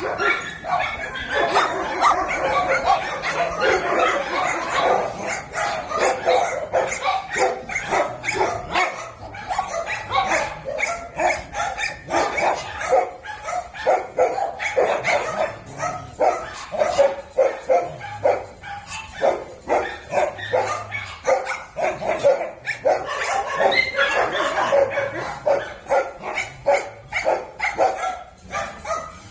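Many dogs barking and yipping at once, a dense din of overlapping barks with no pause.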